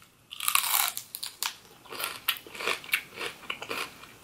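A crisp bite into a raw celery stalk close to the microphone, then crunchy chewing with sharp crunches several times a second.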